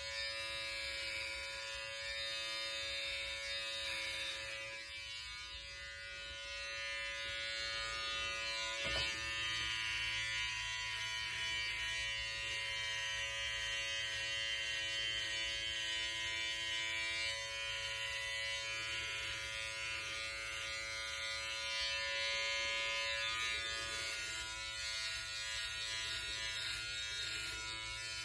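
Electric hair clippers running with a steady buzz as they shave a scalp, with a short click about nine seconds in.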